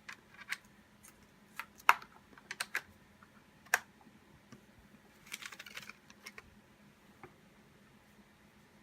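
Scattered sharp clicks and taps of hands working a laptop and its USB hard-disk cable. There are louder knocks about two seconds and nearly four seconds in, and a quick run of small clicks a little past the middle.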